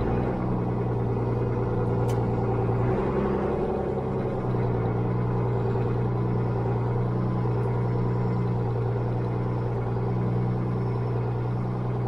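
Ford TW-25 tractor's six-cylinder turbo diesel engine pulling steadily under way, heard from inside the cab, its note dipping briefly about three seconds in and then steadying.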